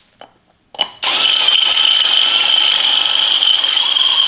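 Cordless drill with a step bit boring out a hole in a steel plate, its motor whining at a steady pitch. It stops at the start, gives a short burst just under a second in, then runs on steadily. The hole is being opened up so a thicker leaf spring pack will fit through the plate.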